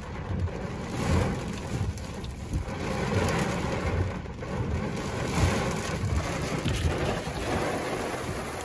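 Heavy rain beating on a car, heard from inside the cabin, with uneven low rumbling underneath.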